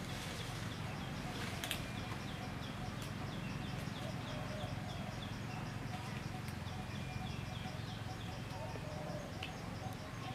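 Forest ambience: a steady low rumble with a run of short, high, evenly repeated chirps, about three a second, and a single click a little under two seconds in.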